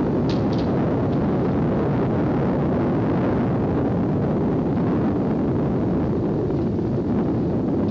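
Moving road vehicle driving: steady engine and tyre rumble, with wind buffeting the microphone.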